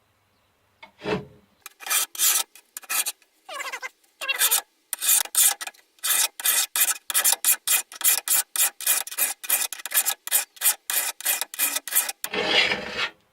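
Hand file rasping along the steel edge of a lawn mower blade in quick repeated strokes, about two to three a second, starting about a second in, with a longer, heavier scrape near the end. The filing is the finishing stage after the bench grinder: it smooths the ground edge to fine file lines and sharpens it.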